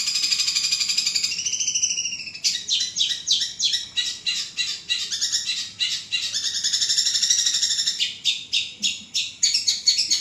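Long-tailed shrike (cendet) singing loudly. Continuous high buzzy trills alternate with runs of quick, sharp, separate notes at about four a second.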